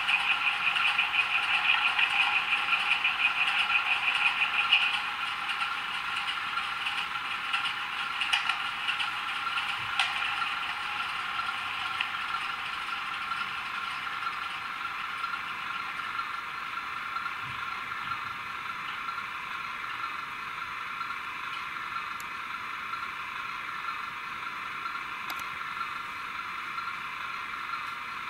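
A model diesel locomotive's sound decoder playing diesel engine running sound through the model's tiny speaker, thin and without bass. About five seconds in, the brighter upper part of the sound stops and a quieter, steady engine hum continues.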